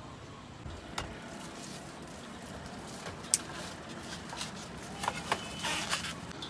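Food being handled on a steel counter: a few sharp clicks and taps, the loudest about three seconds in, then a short rustle of wrapping near the end, over a steady traffic hum.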